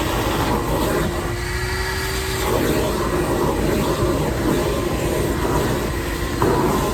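Shop vac running steadily while vacuuming a van's interior, a continuous rushing hiss, with a thin steady tone coming in for about a second and a half about a second in.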